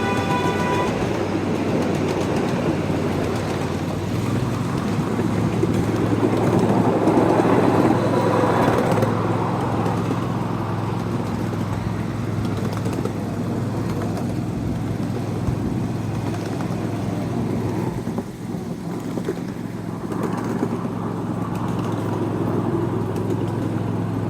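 A car horn on a miniature diesel locomotive sounds and cuts off about a second in. The locomotive's engine then runs steadily with a low hum, getting louder about six to nine seconds in.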